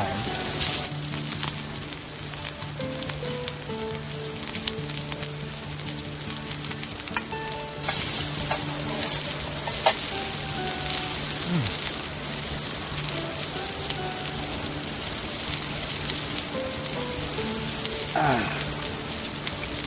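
Sliced sausage sizzling on a small grill pan over a camp stove, a steady frying hiss that grows louder about eight seconds in.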